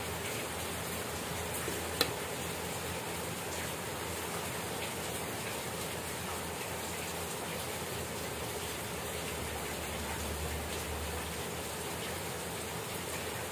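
Steady rain falling, an even hiss with no break. About two seconds in there is one sharp tap.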